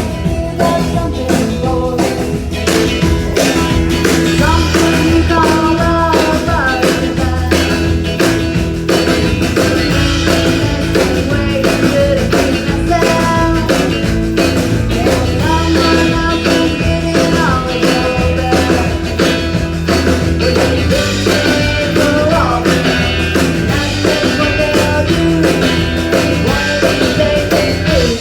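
Live rock-and-roll band playing, with a singer over drums, bass and guitar and a steady beat.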